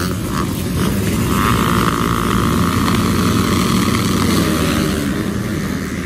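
A field of motocross dirt bikes revving together at the starting gate, held at high revs, then launching off the line near the end as the gate drops.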